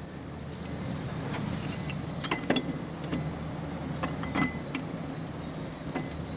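Steel tractor gears and shaft clinking and knocking lightly against each other and the gearbox casing as the gear assembly is fitted into the housing: a scatter of short metallic clinks, a few with a brief ring, over a steady low hum.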